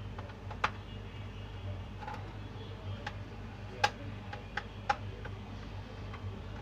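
Irregular light clicks and taps of a small hand tool and fingers on the plastic bottom case of an HP 250 G7 laptop being taken apart, about eight in all with the sharpest a little under four seconds in, over a low steady hum.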